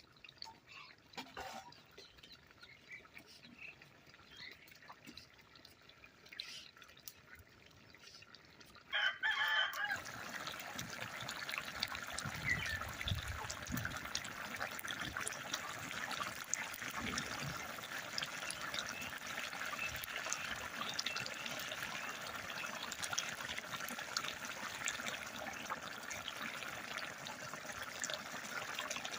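A rooster crows once about nine seconds in, and steady trickling water follows and runs on.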